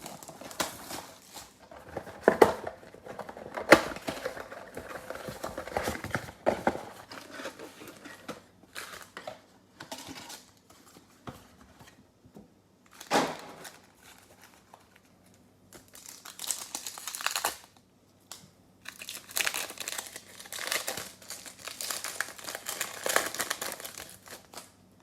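Plastic wrapping and card packs of a 2020 Select football mega box being torn open and crumpled by hand: irregular crinkling and tearing with a few sharp clicks, in busier spells near the end.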